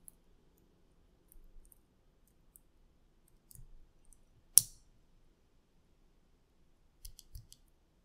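Small plastic clicks and ticks from a LEOBOG Juggle v2 mechanical keyboard switch being handled, its POM housing halves pressed together by hand. One loud sharp snap comes a little past halfway, and a quick cluster of ticks comes near the end.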